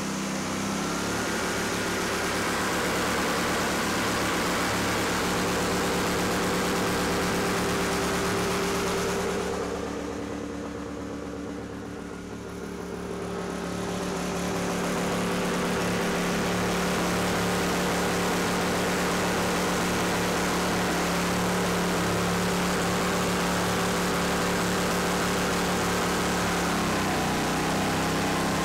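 Boat mud motor running at speed: a steady engine drone, briefly quieter about ten seconds in, that drops in pitch as it is throttled back near the end.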